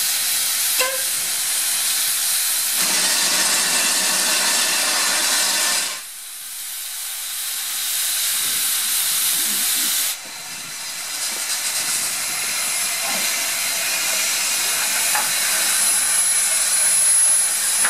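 Steam hissing from a saddle-tank steam locomotive, a steady hiss that fills out abruptly about three seconds in, drops away sharply about six seconds in and comes back about four seconds later.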